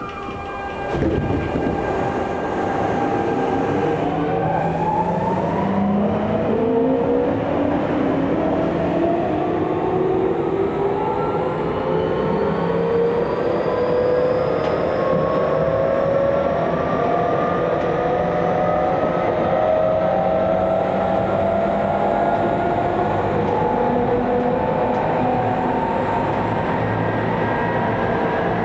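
Tokyu 2000 series electric train pulling away from a station: the inverter and traction motors whine in several tones that rise together for about twenty seconds and then level off, over the steady running noise of the wheels on the rails.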